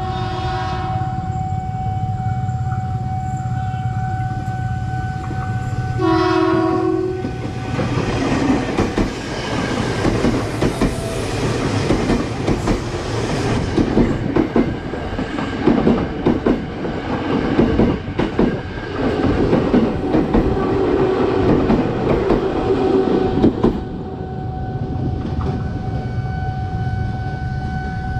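An ex-Tokyu KRL electric commuter train sounds its horn twice on approach: briefly near the start and again about six seconds in. It then passes close by with loud, rhythmic wheel clatter over the rail joints, which cuts off about 24 seconds in. A steady crossing warning tone sounds underneath throughout, plainest at the start and end.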